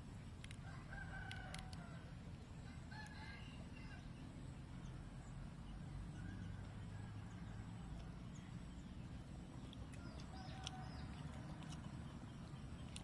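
A rooster crowing faintly a few times, with other chickens, over a low steady rumble.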